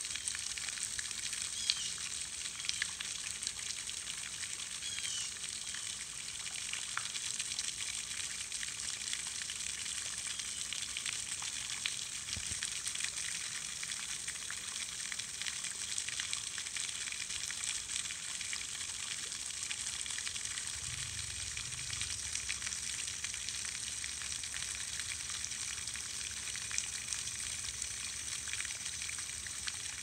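A pond fountain's jet of water splattering onto the pond surface, a steady hiss of spray.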